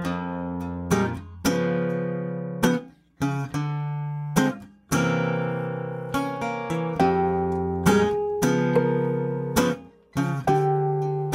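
Instrumental song intro on acoustic guitar: chords and single notes plucked and left to ring, a few of them cut off short before the next one.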